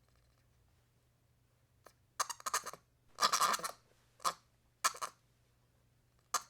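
A series of short, irregular scratchy scrapes, the longest lasting about half a second in the middle, with a single shorter one near the end.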